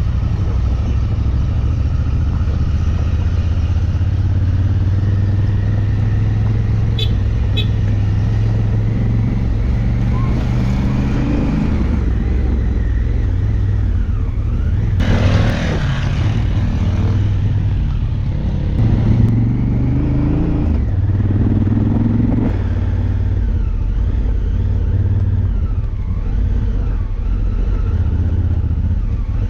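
Enduro motorcycle engine running under way, its revs rising and falling as the bike is ridden, with a brief rush of noise about halfway through.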